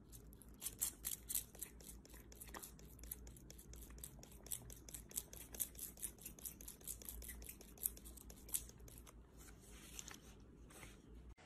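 A handheld pet brush brushing a cat's cheek and fur: faint, quick, scratchy strokes, about four a second, that stop about nine seconds in.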